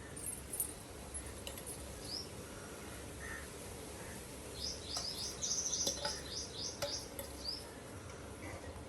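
Small birds chirping: short, high chirps here and there, with a quick run of them about five seconds in, over a low steady hum.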